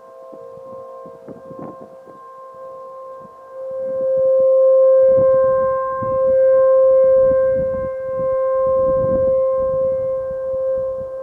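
Outdoor tornado warning siren sounding a steady single-pitch alert tone for a statewide tornado drill. It grows much louder about three and a half seconds in, then swells and fades as the rotating horn sweeps around.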